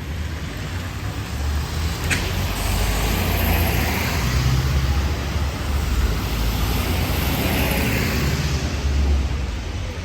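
A road vehicle passing close by on a wet city street: a deep engine rumble and tyre hiss swell for several seconds, then fade, over a steady wash of traffic and rain noise. A short sharp tick comes about two seconds in.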